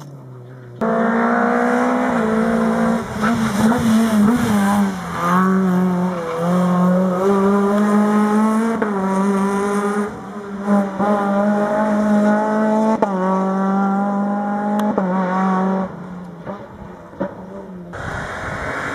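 Rally car engine at high revs, accelerating hard along a tarmac stage, its pitch climbing through each gear and dropping sharply at the shifts. It quietens near the end.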